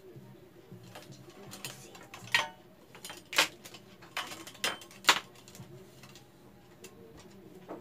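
Sharp clicks and knocks of the ring light's tripod stand fittings being handled and fastened, about five strong ones between two and five seconds in.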